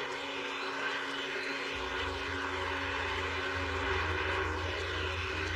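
Steady arena crowd noise from a boxing audience, an even wash of many voices with no single voice standing out. A low rumble joins it about two seconds in.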